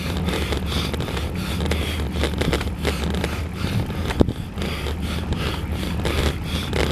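Riding noise on a camera mounted on a road bicycle: a steady wash of wind on the microphone and tyre rumble on the asphalt, with small rattles from the mount and a sharp knock about four seconds in.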